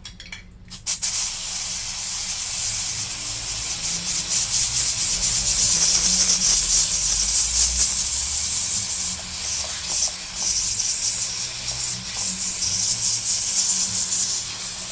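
Steady hissing jet of air or spray played over a laptop keyboard to clean it, starting about a second in.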